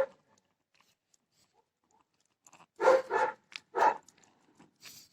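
Dog barking: a few short barks, starting about three seconds in.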